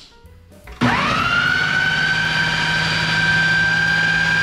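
Ninja countertop blender switched on about a second in, its motor whine rising quickly to a steady high pitch as it blends the sauce ingredients.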